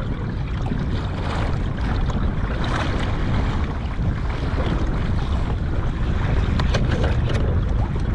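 Wind buffeting the microphone as a steady low rumble, with choppy water lapping and slapping against a fishing kayak's hull.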